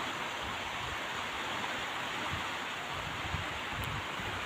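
Steady, even hiss of water and rain, with no distinct events.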